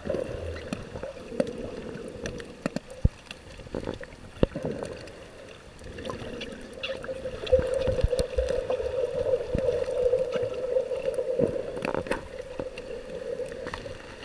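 Muffled underwater noise heard through a compact camera's underwater housing: sloshing and gurgling with scattered clicks and knocks, over a steady hum that grows louder from about halfway through.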